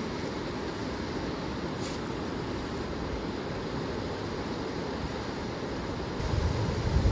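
Steady rushing of a fast-flowing river current, with a low rumble of wind on the microphone coming in about six seconds in.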